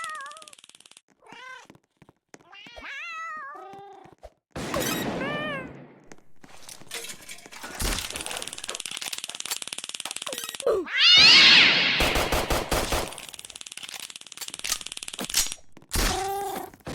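Cats meowing again and again, with separate meows at intervals, one long rising-and-falling call about 11 seconds in. Stretches of crackling, clicking noise fill the gaps between them.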